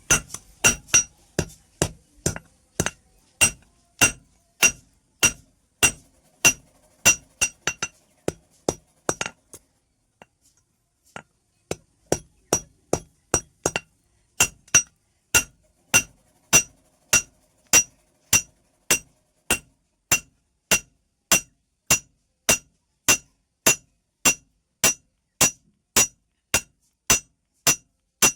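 Hammer blows on metal in a steady rhythm, about two a second, each with a short ringing clink. The blows stop for about two seconds about a third of the way in, then carry on.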